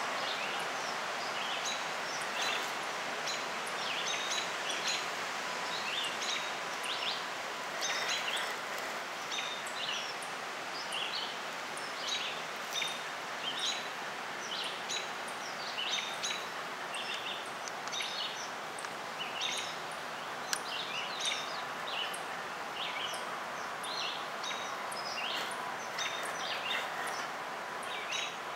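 Small songbirds chirping and singing, many short, high calls scattered throughout, over a steady outdoor hiss.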